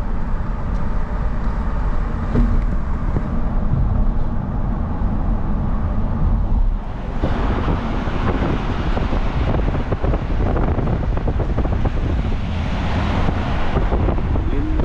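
Steady low road and engine rumble inside a moving car. About seven seconds in, a louder, hissier rush of wind and traffic noise comes in.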